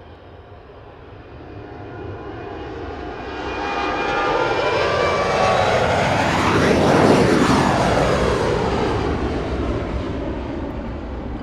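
Airliner taking off and passing close by: its engine noise builds to a peak about seven seconds in, then fades as it moves away.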